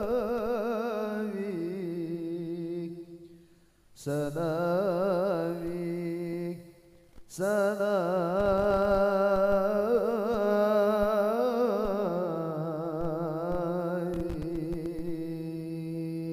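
A solo voice singing an Arabic devotional song (sholawat) in long, ornamented notes with a wide vibrato. It breaks off briefly about four seconds and about seven seconds in.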